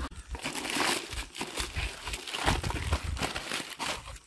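Cardboard shipping box being unpacked by hand: packing tape cut and pulled off, cardboard flaps and bubble wrap rustling and crinkling, with irregular small clicks and crackles.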